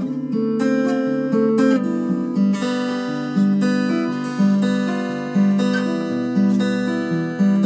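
Acoustic guitar strummed in a slow, steady rhythm, with a chord struck about once a second and the chords changing as the song moves along, played live with no singing.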